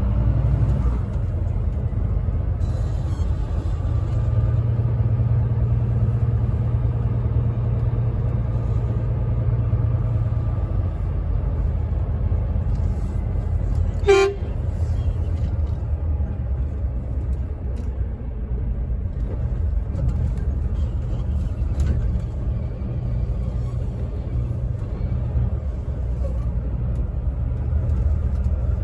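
Truck engine and road noise making a steady low rumble, with one short horn toot about halfway through.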